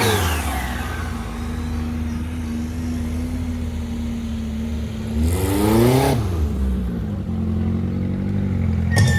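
Off-road vehicle engine running steadily, revved once briefly a little past halfway, its pitch rising and then falling back.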